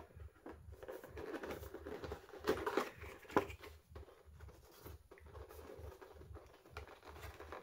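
Rustling and crinkling of a cardboard action-figure box and its packaging being opened by hand, with a couple of sharper clicks about halfway through.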